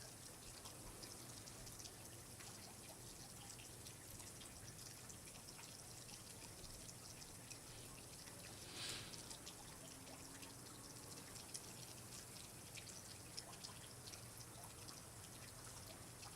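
Faint water dripping and trickling, many small drips over a soft steady hiss, with one brief louder rush about nine seconds in.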